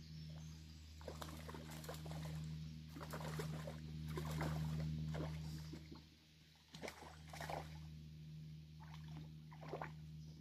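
Faint, irregular splashing and sloshing of water as a hooked rainbow trout is drawn in and landed at the edge of a pond, over a steady low hum.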